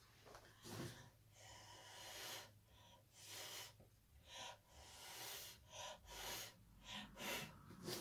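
Faint, repeated puffs of breath blown by mouth onto wet acrylic pour paint, about a dozen short hisses, some drawn out longer.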